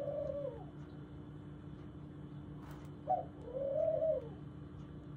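A pet bird calling twice. Each call is a short note followed by a longer note that rises and falls; the first call tails off at the very start and the second comes about three seconds in.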